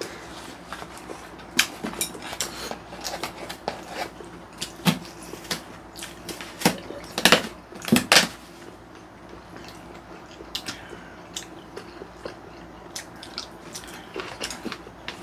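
Mukbang eating sounds: chewing and scattered clicks and clacks of chopsticks and spoons against plastic food containers, with a few louder clacks a little past the middle.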